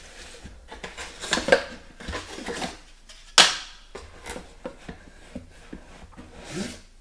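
A cardboard box and its paper contents being handled as a hand reaches in and pulls an item out: irregular rustling and scraping, with a sharp click a little over three seconds in, the loudest sound.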